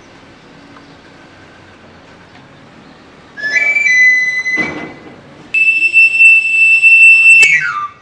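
Knife sharpener's plastic panpipe whistle blown in two loud phrases. A short run of a few notes comes about three and a half seconds in; then a long high note is held and slides quickly down the scale near the end. It is the street call of a bicycle-borne knife sharpener announcing his service.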